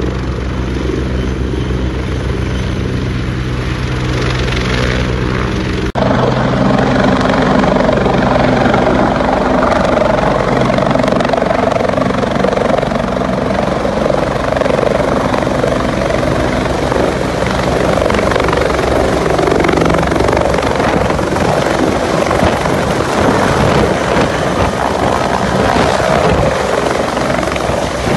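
Bell 430 helicopter's twin turbine engines and four-blade main rotor running steadily. About six seconds in the sound cuts to a louder, fuller rotor and turbine noise as the helicopter hovers low nearby.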